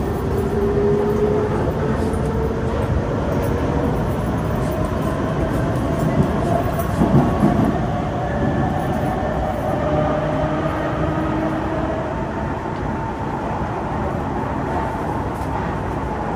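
Kawasaki Heavy Industries C151 metro train heard from on board: traction motor whine rising slowly in pitch over a steady rumble of wheels on rail. There is a brief louder rumble about seven seconds in.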